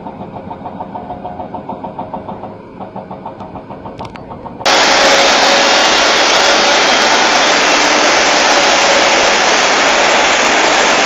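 Diesel engines of Doosan crawler excavators running with an even, pulsing throb. About 4.7 seconds in this cuts abruptly to a loud, steady rushing noise from the torrent of a flooded river.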